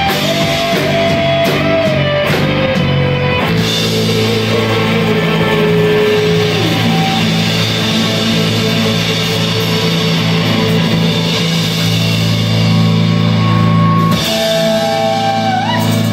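Live rock band with electric guitars and drums playing loudly. A lead guitar holds long notes over steady low chords, one sliding down about six seconds in and another bending up near the end.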